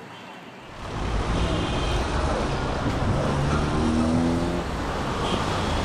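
Road traffic noise: cars running past in a steady rush, fading in about half a second in.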